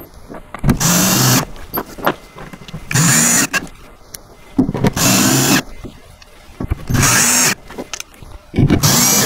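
Cordless drill-driver running in five short bursts, each under a second, driving screws down through a melamine top board into plastic inserts in the panels. Small clicks of handling fall between the bursts.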